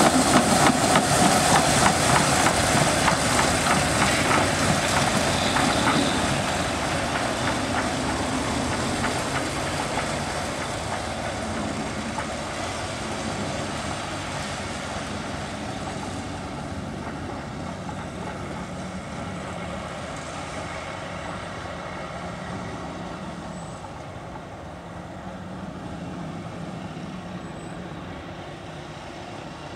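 Motor Rail Simplex narrow-gauge diesel locomotives hauling a train of coaches past and away. The engines run with a fast, even beat at first, and the engine and wheel noise fade steadily as the train draws into the distance.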